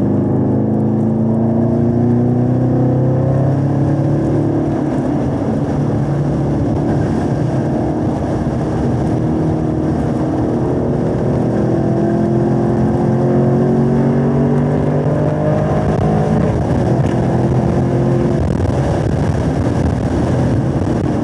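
2017 Camaro SS 1LE's 6.2-litre V8 under hard acceleration, heard from inside the cabin, its pitch rising as the revs climb, with a shift up from third to fourth gear partway through.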